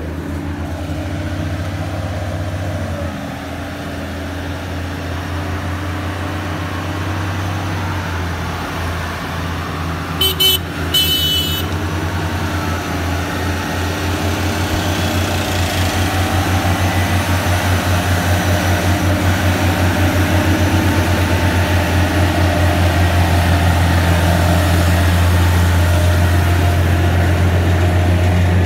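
Heavy truck diesel engine running slowly under load with a deep, steady throb, growing louder as the truck hauling a heavy multi-axle trailer draws near. A vehicle horn sounds briefly about ten seconds in.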